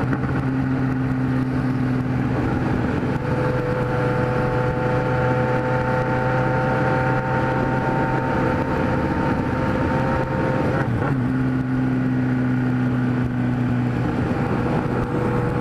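Kawasaki Z1000's inline-four engine running steadily at highway cruising speed, heard from the rider's seat over wind and road noise, briefly shifting in pitch about eleven seconds in.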